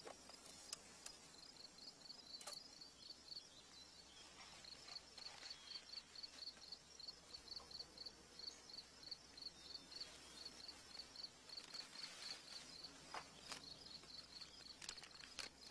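An insect chirping steadily in a fast, even pulse, about four high chirps a second, over faint outdoor hiss. A few soft clicks and rustles of the tin box and paper envelope being handled, about half a second and two and a half seconds in and again near the end.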